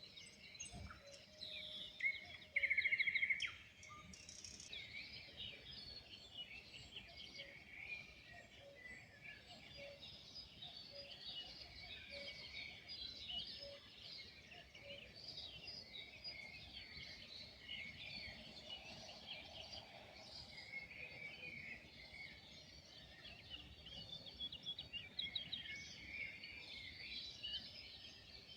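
Dawn chorus of many wild songbirds chirping and trilling over one another, with one louder, fast trill about three seconds in.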